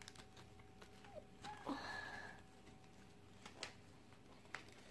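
Near silence, with a few faint clicks of a paper pop-up globe and sticker sheet being handled, and a short soft breath from the child about two seconds in.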